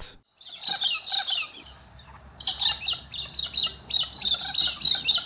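Australian king parrots calling: a short run of harsh, high calls, then from about two and a half seconds in a steady series of repeated calls about three a second.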